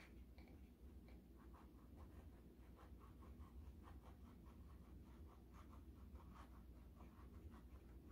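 Faint, rapid scratchy ticks of a hot glue gun being worked across a painted canvas as glue is laid down, starting about a second and a half in, over a low steady room hum.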